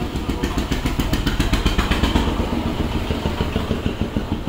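A motor vehicle engine running, a steady low rumble, with a fast run of evenly spaced ticks from about half a second to two seconds in.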